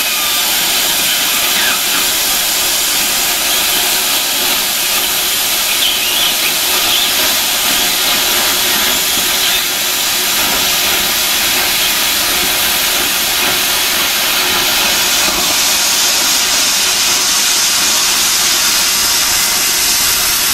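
Plasma cutter cutting through a steel cross member of a truck body: a steady, loud hiss of the arc and its air jet, unbroken throughout.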